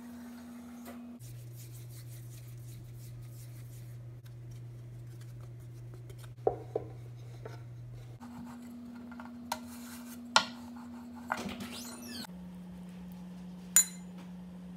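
A few short sharp clicks and taps of hands and a wooden rolling pin working momo dough on a wooden chopping board, over a steady low hum that changes pitch twice.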